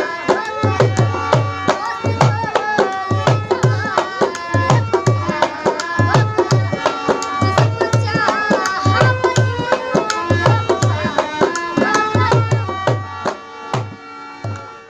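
Dhol and harmonium playing a folk song: held harmonium notes over a steady rhythm of low drum strokes that swoop in pitch. The music fades out near the end.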